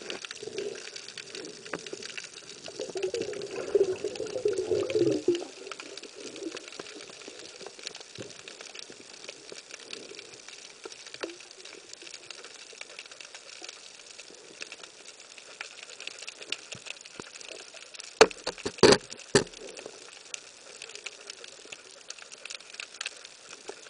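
Steady underwater reef crackle and hiss, heard through the camera housing. A louder rushing burst comes a few seconds in, and a short cluster of sharp knocks later on.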